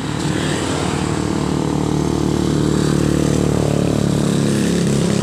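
A road vehicle's engine running close by, its pitched hum growing louder through the middle and changing pitch about four seconds in.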